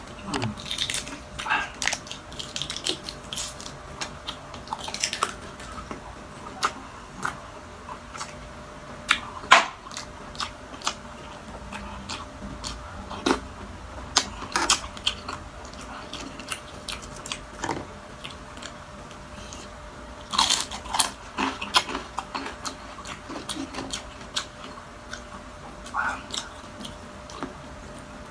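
Close-miked mouth sounds of a person eating balut and crispy fried chicken skin: chewing and biting, with scattered sharp crunches. The loudest crunch comes about ten seconds in, and another cluster comes around twenty seconds in.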